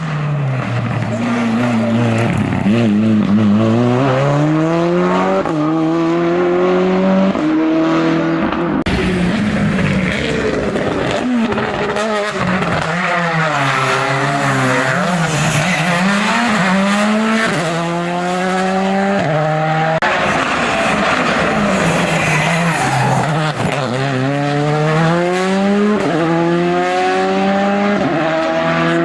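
A race car's engine at hillclimb pace, accelerating hard through the gears with quick upshifts, each marked by a sudden small drop in pitch. It falls back as the car slows for a corner, then pulls up through the gears again; this happens three times.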